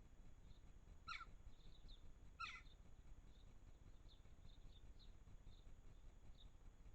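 Faint garden bird calls: two short, louder falling calls about a second and a half apart, with many soft, brief high chirps scattered throughout.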